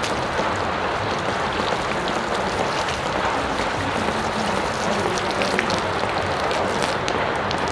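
Water splashing and pattering steadily onto wet pavement, with many small drips and splashes.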